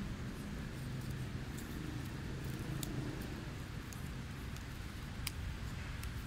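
Steady low engine hum, with a few faint sharp clicks.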